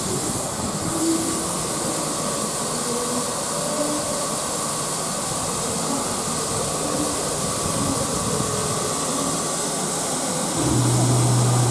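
Steady hiss of steam from the three-cylinder Peppercorn A1 Pacific steam locomotive 60163 Tornado. A steady low hum comes in near the end.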